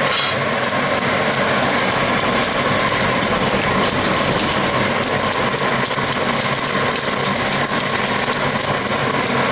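Electric air blower feeding a coal forge fire: a steady, loud drone with a constant whine.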